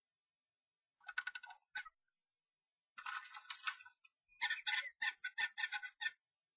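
European starlings calling in three bursts, the last a rapid string of short notes lasting nearly two seconds, during a fight with an intruding starling.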